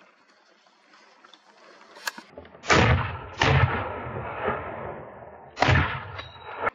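Three rifle shots, the first two less than a second apart and the third about two seconds later, each trailing off in a long echo.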